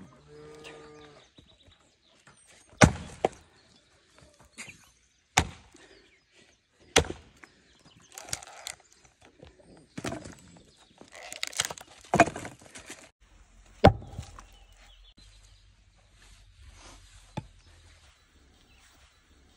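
Axe splitting logs: about six sharp chops a few seconds apart, with cracking and splintering as the wood splits apart.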